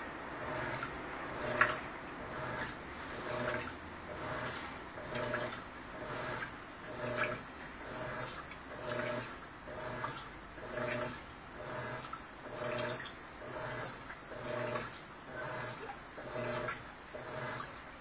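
Electrolux Turbo Economia LTD11 top-load washing machine agitating a load in soapy water, running very quietly. Its motor hums with each agitator stroke, a little over one stroke a second, over the swish and slosh of the water, with one sharper stroke about a second and a half in.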